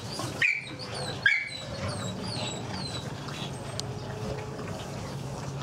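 A dog whining and yipping: two short high whines, about half a second and a second and a half in, then several fainter falling squeaks, over a low steady hum of the room.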